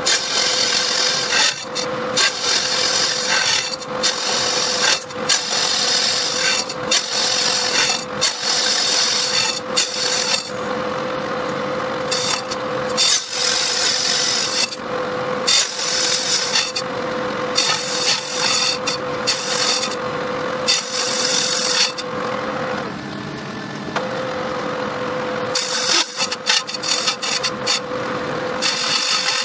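Metal lathe boring the centre hole of a metal disc: the tool cutting with a scraping hiss that comes and goes, over the steady hum of the running lathe. The cutting noise and the hum ease off briefly about two-thirds through.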